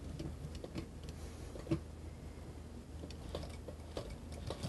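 Faint, scattered light ticks and clicks as a mink-and-leather garment is handled and lined up under an industrial sewing machine's presser foot, over a low steady hum.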